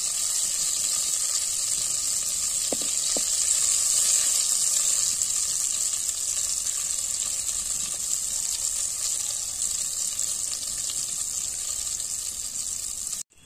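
Hot mustard oil sizzling steadily in a clay pot as bay leaf, dried red chilli and panch phoron seeds fry in it. The sizzle cuts off suddenly near the end.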